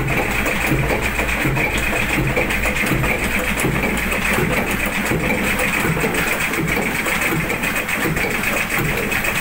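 Old tug boat's slow-turning diesel engine running steadily, heard close up in its engine room, with an even low mechanical beat.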